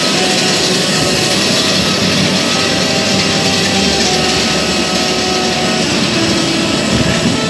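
Steady, loud noise of jet aircraft on the ramp: an even engine roar with faint whining tones running through it.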